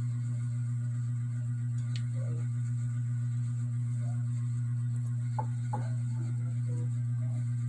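A steady low hum at an even level, with a few faint clicks about two seconds in and twice near the end.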